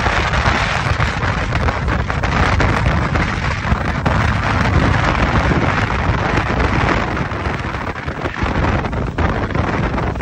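Strong wind buffeting the microphone on a moving motorboat, with the rush of water along the hull underneath; a steady, heavy noise without pitch.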